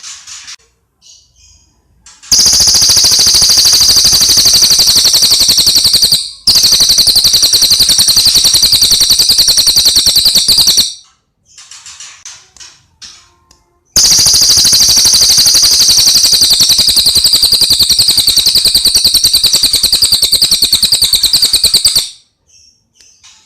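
Cililin songbird singing: soft scattered chirps, then two very loud, very fast high trills of about eight seconds each, with a brief break in the first, separated by a few seconds of softer chirping.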